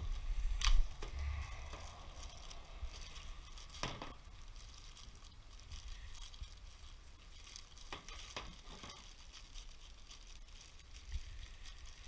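Scattered clicks and clinks of small metal parts being handled, with a louder knock and thump just under a second in and sharper clicks about four and eight seconds in.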